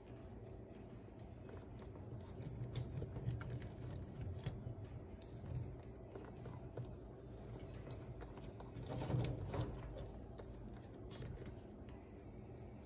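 Moluccan cockatoo rummaging and nibbling with its beak in wood-shaving bedding: irregular small clicks and crackles, with a busier flurry about nine seconds in.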